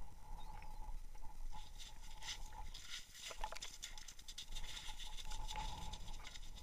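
Wind rumbling on the microphone, with faint scattered taps and crunches on snowy ice as a fish is hauled out and dropped onto it, and a thin steady whine in the background.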